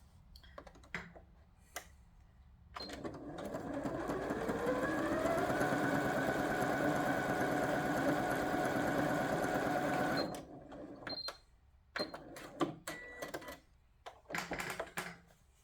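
Janome M100 QDC computerised sewing machine stitching a straight line. After a few clicks it starts up, speeds up over a second or two, runs at a steady rapid whir for several seconds, then stops abruptly. A few more clicks and taps follow.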